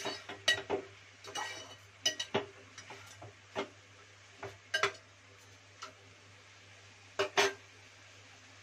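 Metal spatula stirring chicken pieces in an aluminium pressure cooker pot, clinking and scraping against the pot at irregular moments. The two loudest knocks come close together near the end.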